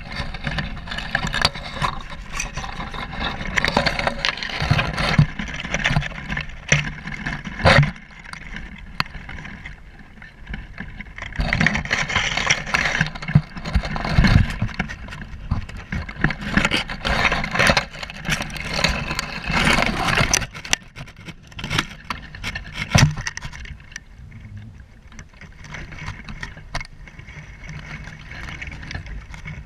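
Rustling, scraping and clicking right at the microphone, with a low rumble underneath: handling noise from the camera among dry twigs. It comes in loud stretches and eases off over the last few seconds.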